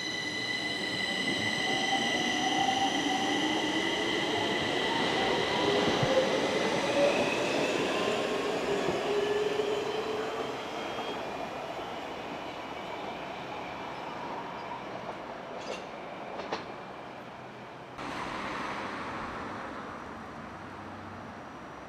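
Stockholm Metro train pulling out of the station: the electric traction motors whine, rising in pitch as it accelerates, over a high steady whine. The train passes loudest in the first few seconds, then fades away. A couple of sharp clicks follow, then a sudden rush of noise near the end.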